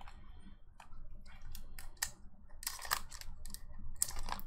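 Foil Pokémon booster pack wrapper crinkling and crackling as it is handled and torn open by hand, a run of sharp crackles, loudest about three seconds in and again near the end; the pack is hard to get into.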